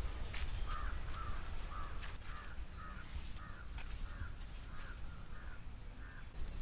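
A bird calling in a run of about a dozen short, harsh calls, two or three a second, that stops about a second before the end.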